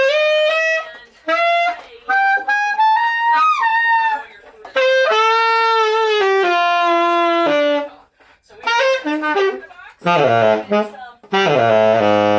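Solo tenor saxophone playing jazz phrases: a climbing run of short notes with bends, then long held notes, then loud low notes near the end, with short breaths between phrases.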